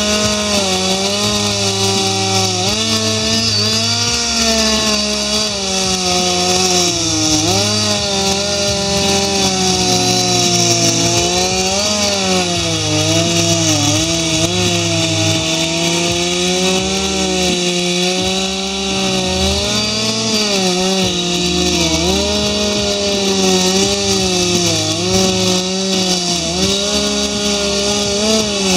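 Two-stroke chainsaw cutting into a wooden log for a carving, running hard, its engine pitch rising and falling as it cuts.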